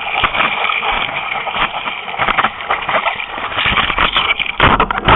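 Whitewater and spray splashing hard against a surf-race paddleboard and its nose-mounted camera as the rider knee-paddles out through breaking surf, with many irregular slaps of water. Near the end a deeper rush of whitewater surges in.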